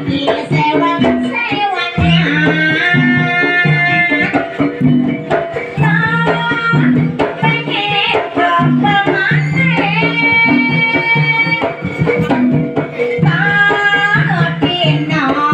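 Javanese jaranan music: hand drums keep a repeating beat under a wavering, sustained melody line.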